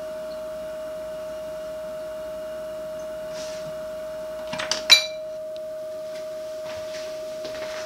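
A steady, pure high tone hums throughout over a faint low hum. A little before five seconds in, a quick run of clicks ends in a sharp snap as the toaster oven's plug is pulled from the wall outlet, and the low hum cuts out with it.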